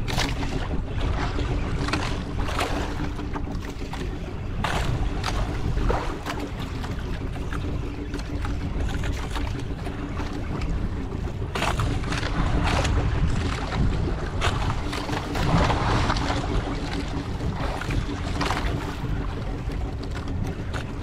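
Small boat's engine running steadily, with wind buffeting the microphone and a few short sharp knocks.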